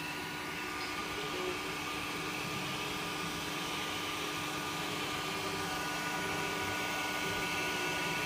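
Zortrax M200 3D printer running a print: a steady mechanical whir with several steady whining tones held over it.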